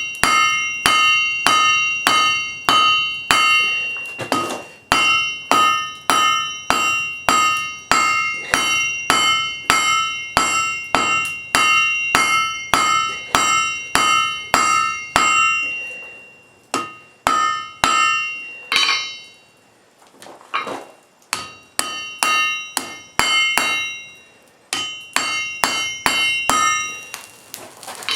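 Blacksmith's hammer striking hot wrought iron on an anvil, about two to three blows a second, with the anvil ringing at each blow. Past the halfway point the hammering breaks off into a few scattered strikes and a short lull, then a steady run of blows resumes.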